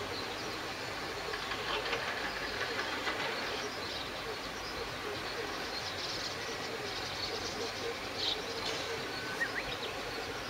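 Steady rain falling on flooded rice-paddy water, an even hiss.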